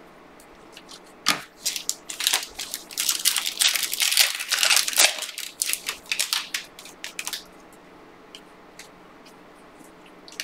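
Panini Prizm basketball card pack being torn open and its wrapper crinkled by hand. The dense crackling and rustling starts about a second in and dies away after about seven seconds, leaving a few faint ticks.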